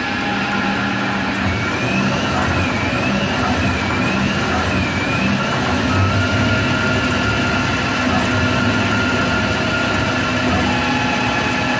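Tormach 15L Slant Pro CNC lathe running steadily while grooving a paintball marker bolt. A whine rises and falls four times over the first few seconds, then holds one steady pitch from about halfway.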